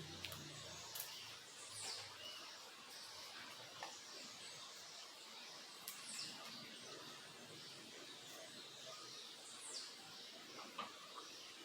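Small birds chirping: scattered short high calls and a few quick downward-sliding whistles, faint, over a steady rushing hiss from a small creek.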